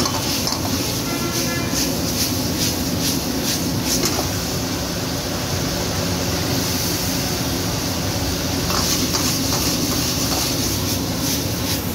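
Steady rush of a high-flame gas wok burner with food sizzling in the wok. A steel ladle scrapes and clatters against the wok as the food is tossed, through the first few seconds and again near the end.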